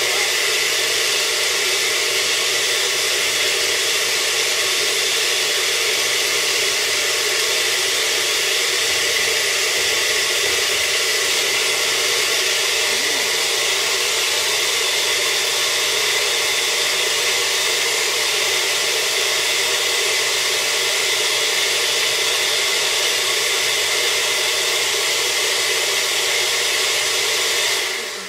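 Countertop blender running steadily and loudly, blending a green smoothie, then switched off just before the end and winding down.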